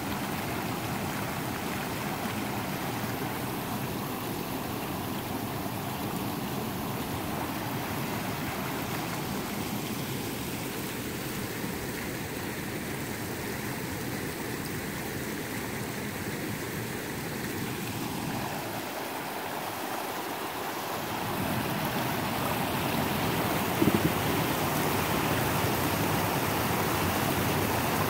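Muddy floodwater rushing down a rocky roadside ditch and spilling over rocks and a washed-out road edge: a steady flowing rush that grows louder about three-quarters of the way in. One brief knock follows shortly after.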